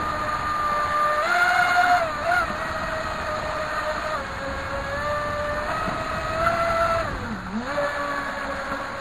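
Small brushless inrunner electric motor of an RC jet ski driving its jet-drive pump, a steady high whine over rushing water. The pitch steps up and down with the throttle, and it dips sharply low and climbs back about seven and a half seconds in.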